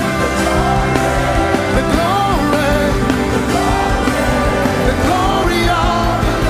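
Live gospel worship music: a voice singing a melody over held band chords and a steady bass.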